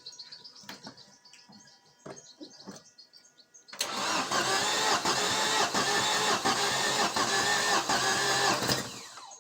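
ZMZ-514 turbo-diesel engine being cranked on its starter for about five seconds without firing, a steady loud sound with a regular pulse that starts suddenly about four seconds in and stops shortly before the end. Faint clinks come before it.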